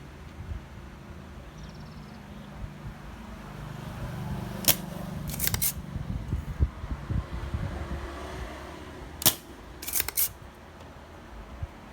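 Sharp clicks from hand work at the bench, over a low steady hum: a single click followed by a quick double click, and about four and a half seconds later the same pattern again.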